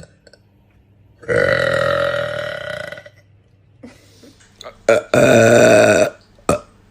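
A young woman burping loudly: two long burps, the first starting about a second in and lasting nearly two seconds, the second a little past the middle. Short sharp blips come just before the second burp and just after it, and another burp begins at the very end.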